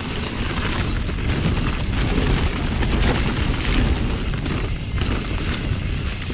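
Wind buffeting the microphone, with the rumble of a mountain bike rolling over a dirt trail.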